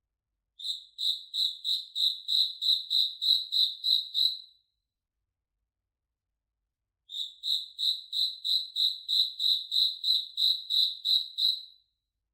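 Cricket chirping in two runs of evenly spaced, high-pitched chirps, about three a second, each run lasting about four seconds with a pause between.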